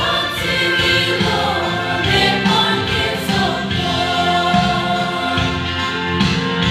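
Choir singing a gospel song in harmony, with sustained held notes.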